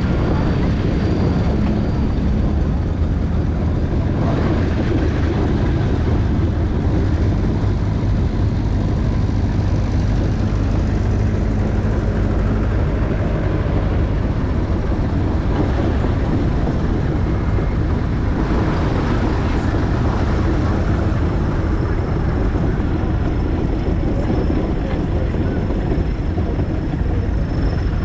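A 4-inch scale McLaren steam traction engine on the move, giving a steady, continuous rumble from its running gear and wheels.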